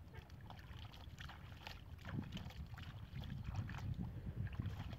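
Water poured from a plastic bowl trickling and splashing down a plastic chute, in many small splashes over a low rumble.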